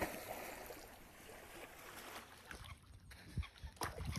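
A dachshund jumping into lake water with a splash right at the start, then water sloshing and settling as it swims, with a few low thumps near the end.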